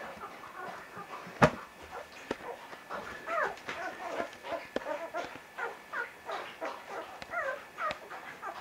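Young vizsla puppies squeaking and whimpering in many short, high calls, several at once, as they jostle to nurse. A single sharp click sounds about one and a half seconds in.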